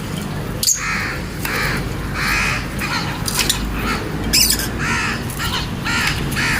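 Fischer's lovebirds calling: a string of short, harsh chirps, about one or two a second, over a steady low hum.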